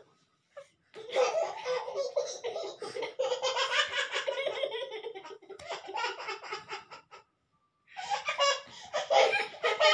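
Hearty laughter that starts about a second in, breaks off briefly about two-thirds through, then picks up again.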